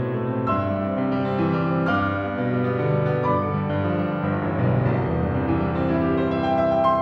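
Background music: a slow, gentle piano piece playing steady notes and chords.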